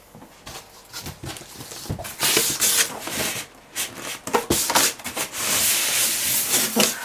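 Polystyrene packing blocks being pulled out of a cardboard box, rubbing and scraping against the cardboard in irregular strokes with a few sharp knocks.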